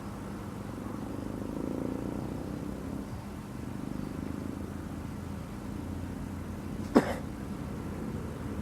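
Low, steady rumble of heavy vehicle and ship engines at a ferry terminal, with a faint steady hum. A single sharp knock sounds about seven seconds in.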